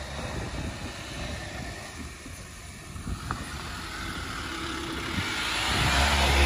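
4WD engine running under load on a steep dirt track, growing louder toward the end with a deep low rumble.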